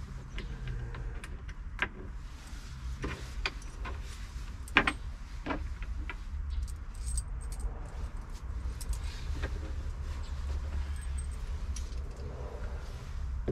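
Loose metal bolts and washers clinking and tapping as they are handled and started by hand into the bolt holes of a rear-seat platform. Scattered sharp clicks, the loudest about five seconds in, over a low steady rumble.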